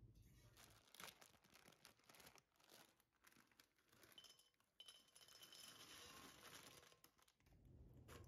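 A plastic biscuit packet crinkles, then small petit-beurre biscuits pour into a glass bowl, a faint rattling patter of biscuits clinking against the glass and each other.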